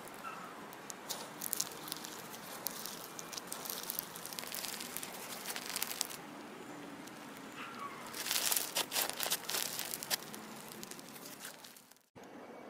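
Pink and white slime squeezed and stretched by hand, giving a crinkly crackle of many small sticky pops and clicks, in clusters about a second in and again from about eight to ten seconds. The sound drops out briefly near the end.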